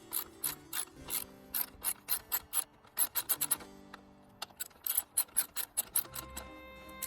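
Hand ratchet clicking in quick runs of strokes, with a short pause a little past halfway. Faint music plays underneath.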